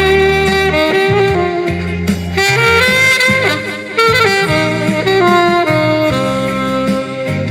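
Saxophone playing a slow melody of held notes with slight slides between them, over a backing accompaniment with a bass line.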